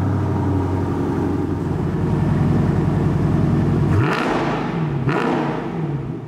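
2016 Dodge Challenger Scat Pack's 392 HEMI V8 idling steadily, then blipped twice about four and five seconds in, the revs rising sharply and falling back each time.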